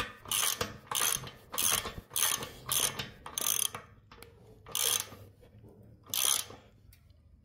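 Ratchet wrench clicking in bursts on its back strokes as it turns a nut down a bolt, drawing a 3D-printed seal press that pushes oil seals into a tire carrier's pivot. The bursts come about every half second at first, then with longer gaps after about four seconds, and stop about a second before the end.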